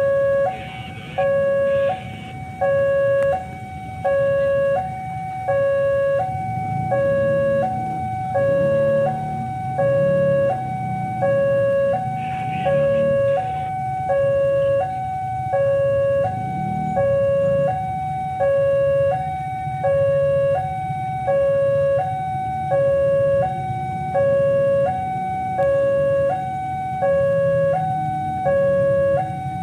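Railway level-crossing alarm sounding its two-tone warning, a lower and a higher tone alternating steadily about every second and a quarter, with a low rumble underneath.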